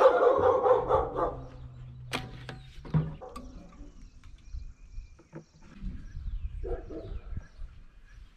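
Dogs barking nearby, loudest in the first second and again briefly about 7 seconds in, with a few sharp knocks in between.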